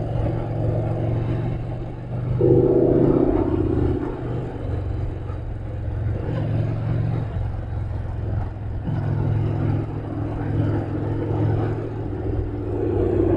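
Motorcycle engine running under way, heard from a mic inside the rider's helmet along with wind and road rush. The engine note shifts a few times, and it rises louder and higher for about a second and a half roughly two seconds in.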